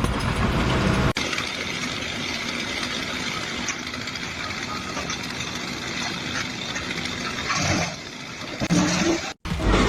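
Steady engine or machinery noise, with abrupt changes about a second in and again near the end.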